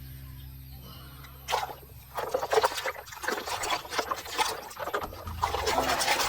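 Water splashing and trickling in irregular bursts, starting about a second and a half in, as toys are washed. A low steady tone fades out just before the splashing begins.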